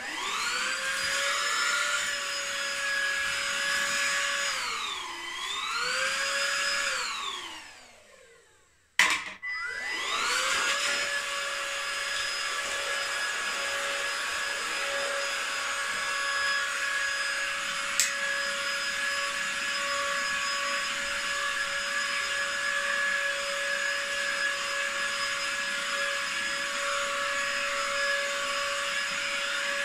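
Eufy HomeVac H11 cordless hand vacuum starting up with a rising whine and running while vacuuming crumbs off a tabletop. Its pitch dips briefly about five seconds in, and then it winds down as it is switched off. After a sharp click it starts up again and runs steadily.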